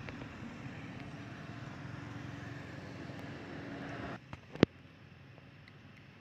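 Steady low hum of road traffic that cuts off abruptly about four seconds in. Soon after comes a single sharp click, the loudest sound, over a much quieter background.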